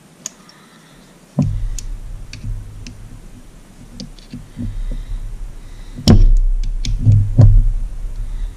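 Screwdriver prying at the upper crankshaft oil seal in an outboard's end cap: scattered metallic clicks and scrapes over a low rumble, with a sudden knock about a second and a half in and a louder one about six seconds in.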